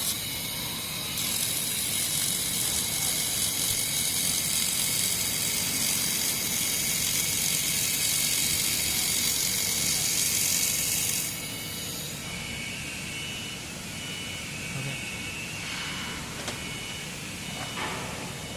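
Welding arc on a carbon steel right-angle joint: a loud, steady hiss for about eleven seconds that cuts off suddenly, leaving a quieter machine hum with a faint high whine.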